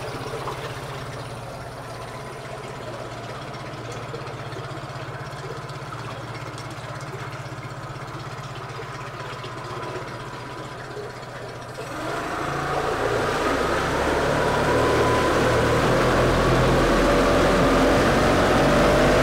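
Yamaha F9.9B two-cylinder four-stroke outboard idling steadily in a test tank, running well. About twelve seconds in it is put in gear and throttled up: the engine gets much louder and the propeller churns the tank water.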